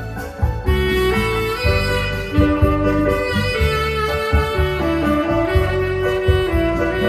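Tenor saxophone playing a slow melody in long held notes that step from one pitch to the next, over keyboard accompaniment with a steady low pulse.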